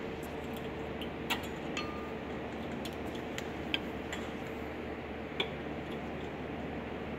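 A few scattered light metallic clicks and clinks as a screwdriver pries and taps at the pad clips on the front brake caliper bracket of a 2015 Subaru Legacy, over a steady faint hum.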